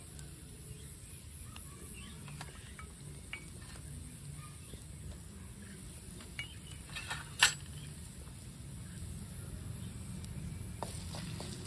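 Small twig fire crackling under a clay cooking pot, with scattered faint snaps and one sharp, loud crack about seven seconds in.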